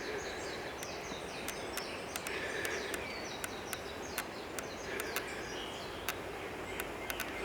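Forest birds calling with quick, repeated high chirps over a steady background hiss, with scattered sharp clicks.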